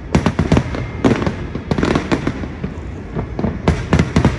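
Aerial fireworks bursting: loud bangs in quick clusters of several reports, one group about every second, with a denser run near the end.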